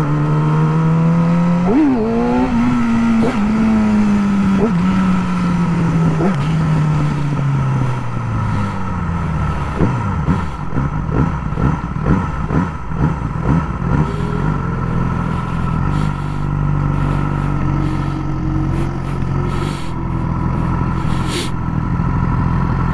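Yamaha R6 inline-four sport bike with a Graves slip-on exhaust: revs climb for about two seconds, then fall in steps through several gear changes as the bike slows. Around the middle comes a run of irregular pops from the exhaust, and then the engine settles into steady low running.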